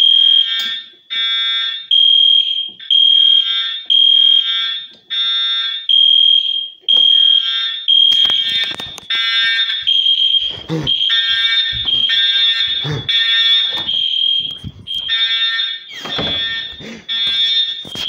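Fire alarm horns sounding in repeating on-off pulses: a steady high electronic tone alternating with a buzzier horn tone. From about eight seconds in, knocks and handling bumps sound over them.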